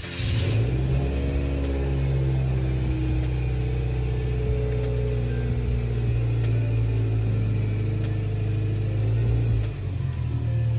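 Subaru flat-four engine pulling the car along, its note climbing slowly under acceleration, with a brief drop near the end as it shifts gear.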